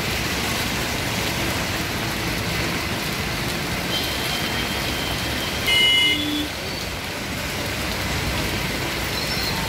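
Heavy rain hissing steadily on a flooded road, with auto-rickshaws and motorbikes driving past close by through the water. About six seconds in, a short, loud high-pitched tone sounds for under a second.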